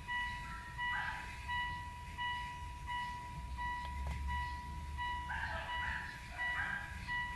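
Electronic beeping: a high fixed-pitch tone repeating about twice a second without stopping, over faint muffled background sounds.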